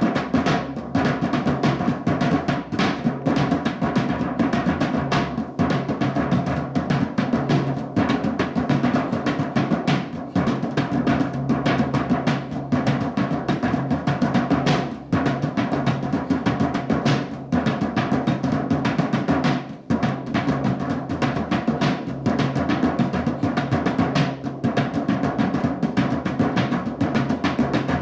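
Drumming music: a fast, dense run of drum strokes over steady sustained low tones.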